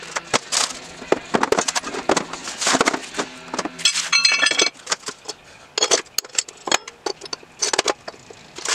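Scrap steel engine parts clinking and clattering as they are handled: loose metal bits rattling in a galvanized bucket, then steel camshafts knocked together with a short ring about four seconds in. Near the end a roller chain shifts in a metal pan.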